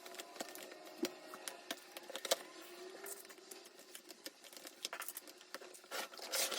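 Irregular light clicks and taps of small objects being handled at close range, with a short burst of rustling just before the end.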